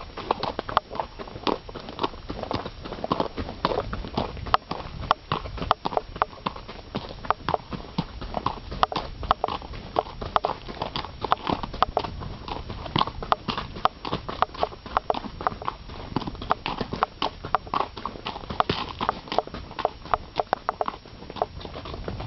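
Horse hooves clip-clopping on a gravel and rock fire road, an uneven run of sharp hoof strikes, several a second.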